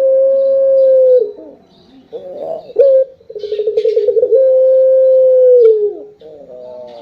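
Puter dove (domestic Barbary dove) cooing: a short note, a quick rolling trill, then a long held note that drops in pitch at its end. One coo finishes about a second in, a second complete coo runs from about three to six seconds in, and fainter coo notes follow near the end.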